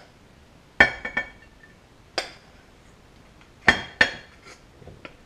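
A metal spoon clinking against a metal saucepan while rice is scooped out: about five or six sharp knocks, each with a short ring, at uneven intervals.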